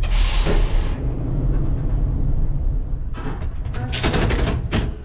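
Vintage tram running slowly, with a steady low rumble of motors and wheels. A sharp hiss of compressed air lasting about a second comes at the start, and a run of shorter hisses and clicks from the air brake comes near the end, as the driver works the brake handle.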